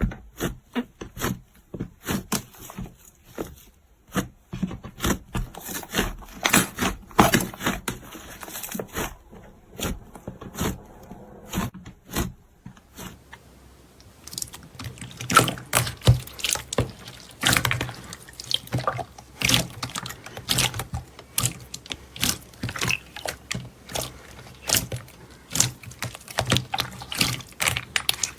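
Slime being squished and poked by hand, making a run of wet clicks and pops. They thin out and quieten about halfway through, then come thick again.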